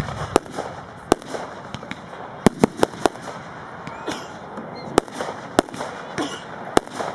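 Aerial fireworks going off: about a dozen sharp bangs at irregular intervals, several in quick succession in the middle.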